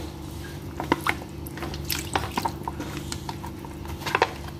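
Fresh milk poured from a bag into a wok of simmering seafood curry: irregular drips, small splashes and pops of liquid, over a steady low hum.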